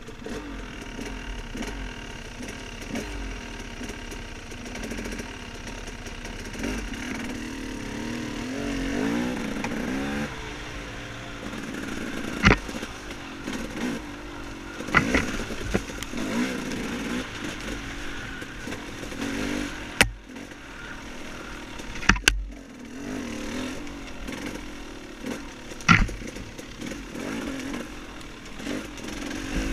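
Dirt bike engine running and revving unevenly on a woods trail, with about five sharp knocks or clatters along the way.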